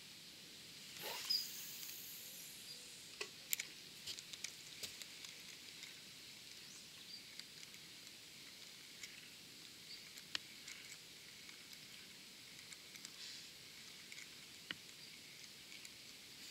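Faint riverbank ambience: a steady high hiss with small clicks and ticks scattered throughout, and one brief louder sound about a second in.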